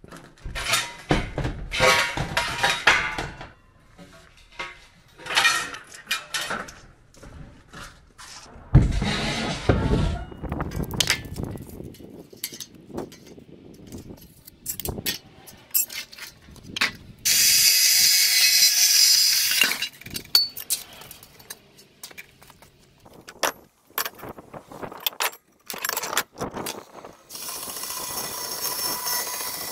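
Rusty steel bar stock and tubing clanking and scraping as lengths are pulled from a rack and handled, many separate knocks. Two spells of a steady high hiss of a couple of seconds each, one just past the middle and one near the end.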